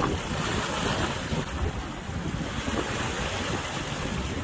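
Wind buffeting the microphone over the rush of choppy, whitecapped sea waves around a sailing yacht.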